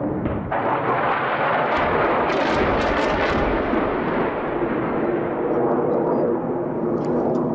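Heavy bombardment: a continuous rumble of distant explosions, with a cluster of sharp cracks of gunfire or blasts about two to three seconds in.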